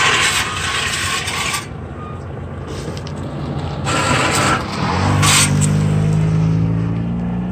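1989 Honda Civic wagon driving slowly past, with two rushes of hiss, the first starting suddenly. From about five seconds in, its four-cylinder engine pulls away under load, its note slowly rising.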